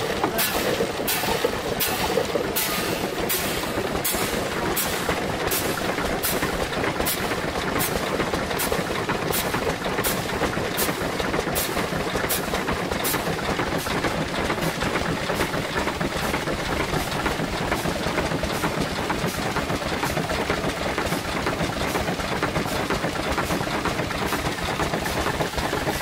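Restored wooden winnower running, its shaking mechanism giving a steady mechanical rattle with sharp regular clacks a little under twice a second, while a small stationary engine runs nearby. The clacks fade about halfway through.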